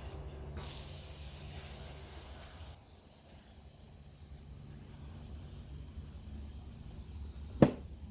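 Air hissing steadily out of a tyre's puncture as the screw is worked out, starting abruptly about half a second in. A single sharp click comes near the end.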